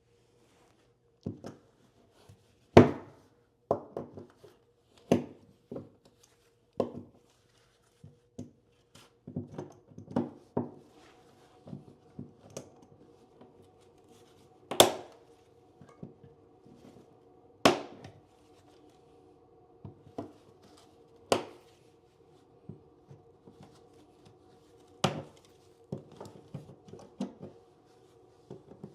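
Irregular sharp metal clicks and knocks as a hand tool pries and pulls staples out of a plywood subfloor, with a few louder strikes among them.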